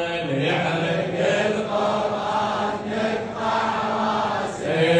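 A man's amplified chanting of a Shia latmiya (lament) into a microphone, in long sustained sung lines.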